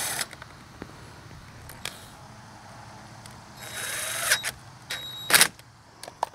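Cordless drill-driver whirring in short bursts, once at the very start and twice more past the middle, turning screws at the generator's battery-compartment panel, followed by a few sharp clicks of handling.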